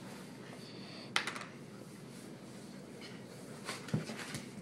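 Quiet room with one sharp click about a second in, then a few soft knocks and a low thud near the end.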